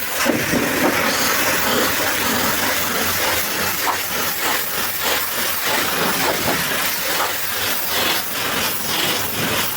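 High-pressure washer jet spraying water against a truck: a steady hiss with frequent short spattering surges.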